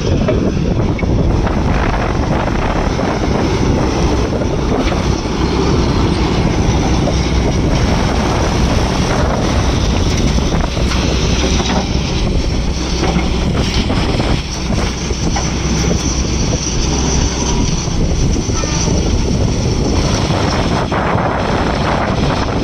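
Volvo EC210B excavator's rebuilt six-cylinder diesel engine running steadily under work.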